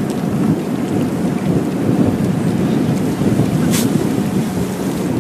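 Wind buffeting the microphone in a steady low rumble, with sea wash underneath. A short swish about four seconds in as a fishing rod is cast.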